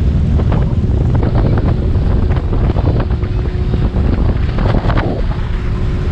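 Heavy wind buffeting the microphone on a small motorboat running at speed, over the steady hum of the boat's motor and the rush of water along the hull.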